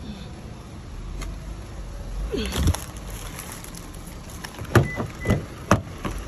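SUV door being opened by its handle: a few sharp clicks and knocks of the handle and door latch about half a second apart in the second half, with a brief high beep among them.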